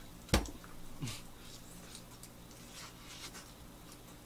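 Quiet eating sounds at a table: a sharp click about a third of a second in, a brief low sound falling in pitch about a second in, then faint soft chewing and handling noises.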